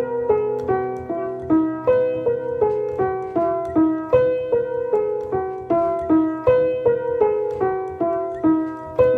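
Keyboard playing an instrumental interlude between sung lines of a worship chorus: a flowing, repeating run of single struck notes, nearly three a second, each ringing and fading before the next.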